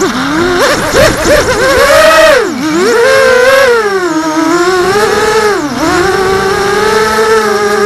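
Racing quadcopter's brushless motors and propellers whining, heard from the quad's onboard camera. The pitch climbs and falls with the throttle, dropping sharply and climbing again three times, then holds a steady whine near the end.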